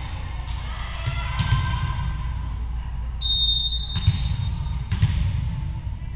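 Volleyball bounced on the hardwood gym floor a few times by the server, sharp single bounces with hall echo. About three seconds in, a referee's whistle blows one steady blast lasting about a second and a half, the signal to serve.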